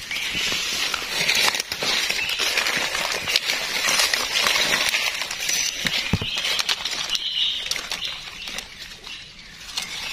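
Dry leaf litter and twigs crackling and rustling in irregular clicks and snaps as mushrooms are picked from the forest floor. A steady high hiss of forest insects runs behind.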